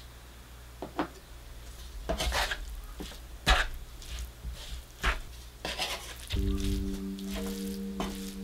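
Wooden spatula scraping and stirring a thick paste of chili flakes, onion and garlic in a nonstick frying pan, in about half a dozen separate strokes, with a light sizzle from the freshly added soy sauce. Soft background music comes in about two-thirds of the way through.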